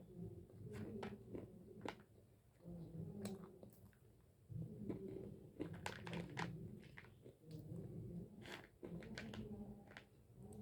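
Close-miked biting and chewing of hard chunks of white khadi (edible white clay): a run of sharp, dry crunches with softer low chewing between them.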